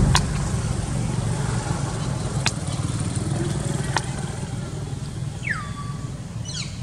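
A steady low rumble of an engine running, with a few sharp clicks and one short whistle falling in pitch about five and a half seconds in.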